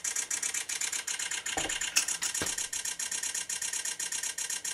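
Sony A1 firing a continuous burst on electronic shutter, its shutter sound clicking rapidly and evenly at about ten a second, still shooting and not yet stopped by the buffer. Two soft handling knocks fall about halfway through.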